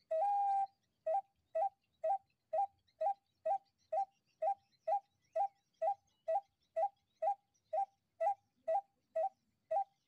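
Homemade PVC-pipe bird call blown by mouth, imitating the call of the white-breasted waterhen (ruak-ruak) to lure the birds in. One longer note opens, then short hooting notes repeat evenly about twice a second.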